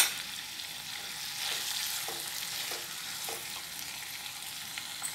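Capsicum and potato pieces sizzling steadily in a pan while a wooden spatula stirs them. A single sharp knock comes right at the start, and a few light spatula taps follow around the middle.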